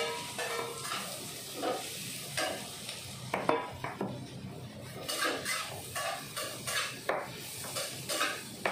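Metal spatula scraping and clinking irregularly against a wok while fried tempeh and tofu are stirred into vegetables frying in oil, over a light sizzle.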